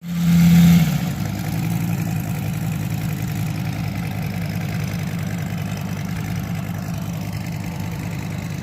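An engine idling steadily with a fast, even pulse, starting abruptly and louder for about the first second before settling.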